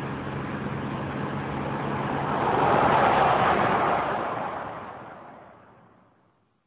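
A rushing, wind-like whoosh that swells to a peak about three seconds in and then fades out to silence, with a faint low steady hum under the first two seconds.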